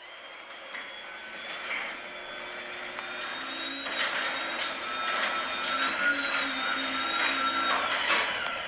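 A LiftMaster 8550 belt-drive garage door opener runs the door up, a steady mechanical whir that grows louder. A steady whine joins about three seconds in, and the run stops near the end.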